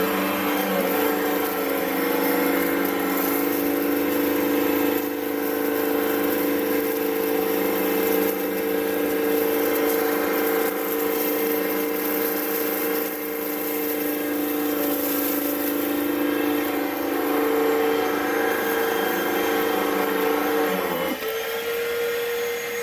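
Hoover Total Home Pet upright vacuum running steadily with a motor whine during a debris pickup test. About 21 seconds in, the lower part of the hum drops away while the main whine carries on.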